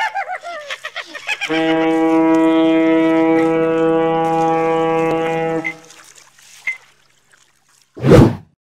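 A ship's horn sounds one long, steady blast of about four seconds, preceded by excited cartoon voices. Near the end a short, very loud whoosh sound effect marks a fast scene transition.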